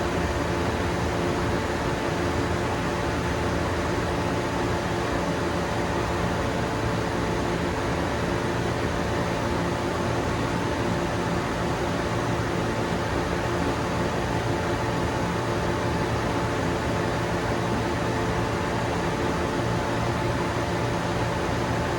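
Taiyo Koki CVG-13 grinding machine running steadily during grinding, a constant whir and hiss with several steady hum tones and no change in pitch or level.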